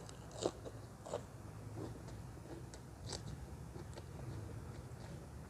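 A person biting and chewing crisp green papaya salad (som tam) close to the microphone, with a few sharp crunches spread irregularly through the chewing.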